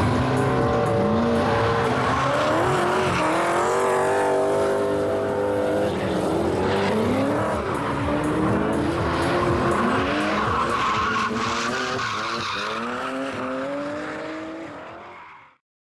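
V8-swapped BMW E36 M3 engine revving hard under drift, its pitch rising and dropping again and again, with tyres squealing as the car slides. The sound fades out near the end.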